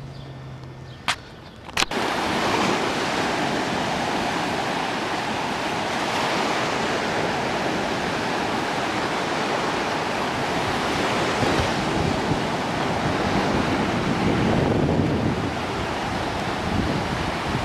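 Small waves breaking and washing up a sandy beach, with wind on the microphone, a steady rushing noise. It starts about two seconds in, after a short quieter stretch with a faint low hum and a couple of clicks.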